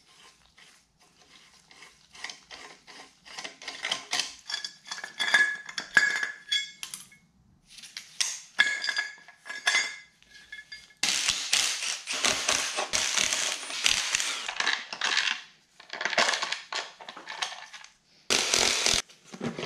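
Hand tools and bolts clinking against the BMW N20 engine's cylinder head as it is taken apart: a run of light metallic clicks and clinks, some ringing, then louder, continuous metallic rattling and scraping from about halfway through, with two shorter bursts near the end.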